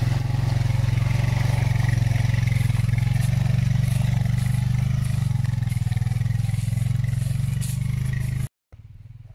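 Honda TRX520 ATV's single-cylinder engine running steadily under load as the quad crawls through mud and snow, with scraping and clatter from the tyres and brush. About eight and a half seconds in it cuts off abruptly, and a much fainter engine sound follows.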